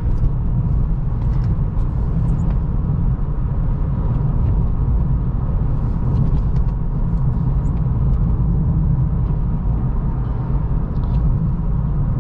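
Car driving at a steady speed: the 2023 Acura Integra's road and engine noise as a steady low rumble, with a few faint scattered ticks.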